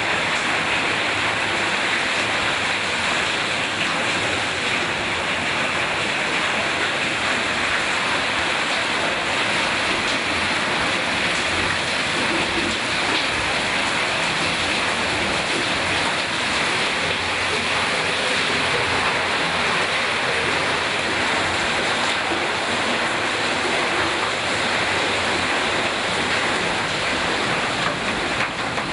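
Water splashing and running over the wooden paddles of a mill waterwheel, a steady rushing noise.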